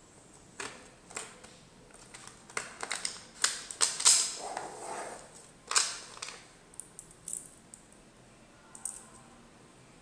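5 mm neodymium magnet balls clicking and snapping against each other as they are handled and pulled into a chain. The clicks come irregularly, thickest in the middle, with a few scattered ones near the end.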